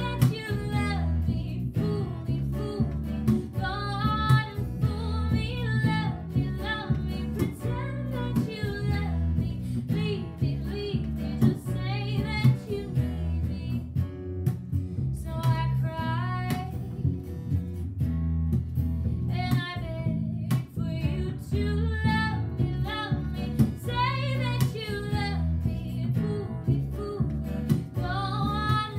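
A woman singing a pop song to her own acoustic guitar accompaniment, with a plucked upright double bass beneath.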